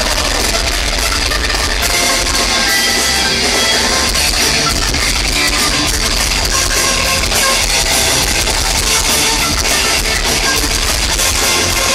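Live heavy metal band playing loudly through a festival PA, heard from within the crowd: electric guitars, bass and drums with a violin in the line-up.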